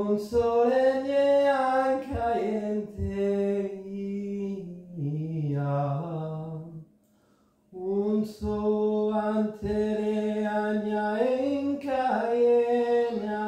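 A man's voice chanting a meditative mantra in long held notes that slide slowly between a few pitches. He breaks for a breath about seven seconds in, then starts a second phrase.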